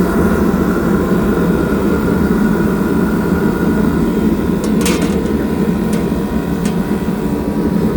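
Steady, loud mechanical running noise of the equipment in a military Mobile Kitchen Trailer, a low even roar with a faint steady whine above it. A few light clicks come about five to seven seconds in.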